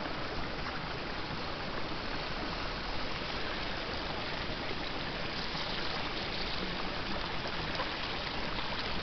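Steady watery rushing from a steaming, boiling hot-spring pool.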